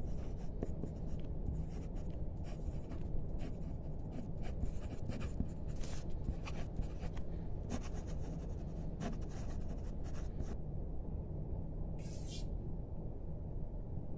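Pen scratching on paper in quick, irregular strokes over a steady low hum. The writing stops about ten and a half seconds in, with one more short scratch near twelve seconds.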